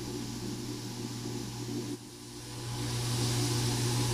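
Kitchen extractor hood fan running with a steady hum over the hiss of meat sizzling on a charcoal grill; the hiss grows louder about three seconds in.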